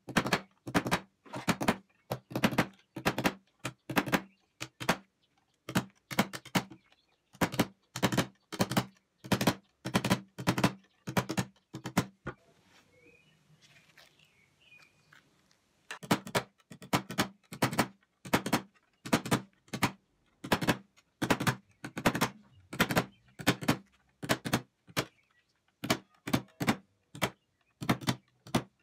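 Small hammer tapping, one tooth after another, along the teeth of a century-old hand saw, setting them. About two sharp metallic taps a second, with a break of a few seconds about halfway through before the tapping starts again on the second side.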